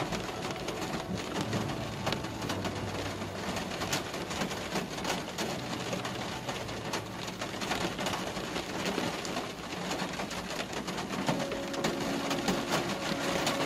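Rain striking a moving car, heard as a dense spatter of small drop ticks over a low steady hum.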